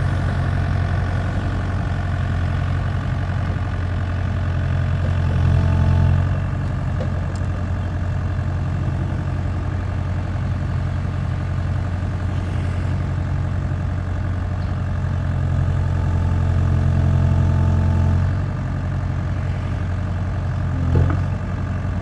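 Kubota U55-4 mini excavator's diesel engine running steadily, growing louder twice (briefly around 5 seconds and for a few seconds around 16 seconds) as the hydraulics take load to raise the machine on its bucket. There is a small knock near the end.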